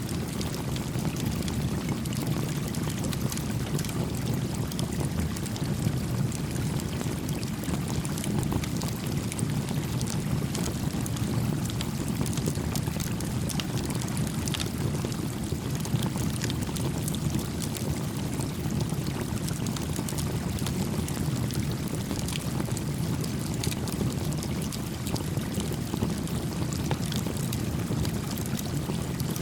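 Steady rushing flow of a creek, with a small wood campfire crackling over it in scattered sharp pops.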